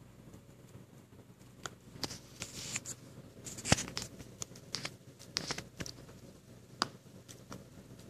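Siberian husky puppy gnawing on a teething ring: irregular clicks and crunches of teeth on the toy, starting a couple of seconds in, with one sharper click a little before the middle.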